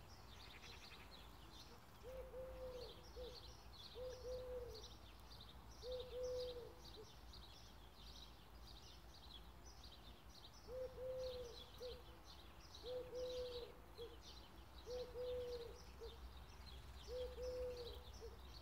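A dove cooing: the same short, low phrase repeated about every two seconds, pausing for a few seconds midway. Small birds chirp and twitter throughout.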